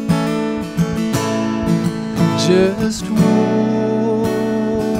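Acoustic guitar strumming chords in a folk song, with a man's singing voice coming in about three seconds in on a long held note.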